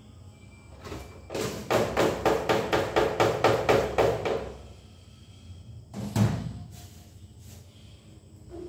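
A fast, even run of about a dozen knocks, about four a second, starting about a second in and lasting some three seconds, then a single heavier knock a couple of seconds later and a few faint clicks.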